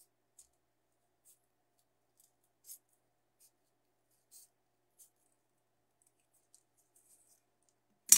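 Scissors snipping through glitter craft foam, a soft cut every second or so, then one sharp knock near the end.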